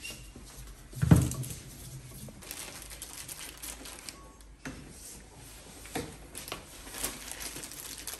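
Handling noises: one heavy thump about a second in, then scattered clicks, taps and rustling.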